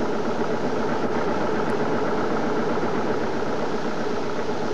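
Steady droning, hissing sound with a few faint held tones, unchanging throughout: the audio bed of a 1980s TV news programme's title sequence.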